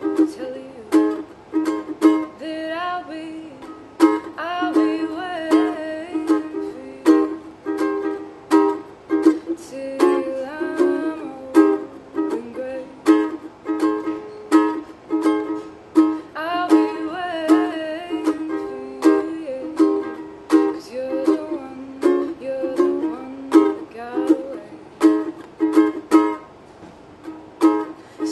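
A woman singing while strumming a ukulele, the strums falling in a steady rhythm under her voice.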